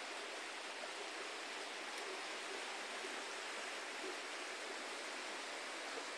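Fast-flowing muddy floodwater of a flash flood rushing across the ground, a steady, even rush of water.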